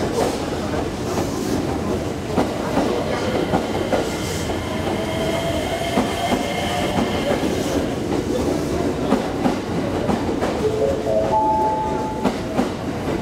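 A JR West 225 series electric multiple unit rolls past the platform, its wheels clacking over the rail joints. The whine of its traction motors and inverter rises in short steps near the end.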